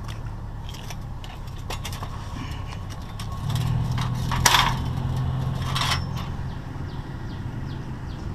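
Steel angle-iron bed-frame rails clanking as they are picked up and dropped into a pickup truck's bed: small rattles, then a sharp clank about four and a half seconds in and another near six seconds. A steady low hum runs underneath.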